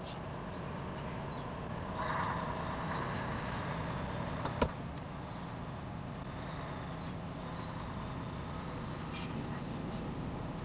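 A vehicle running steadily, a low rumble that swells slightly about two seconds in, with a single sharp click about four and a half seconds in.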